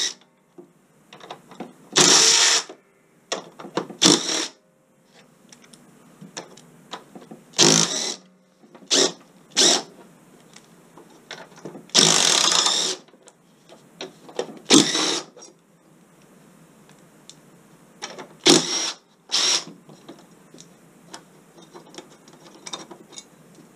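Cordless drill-driver spinning screws out of the plates over a lawnmower's wheel drive in about ten short bursts, the longest about a second long a little past halfway. Small clicks come between the bursts.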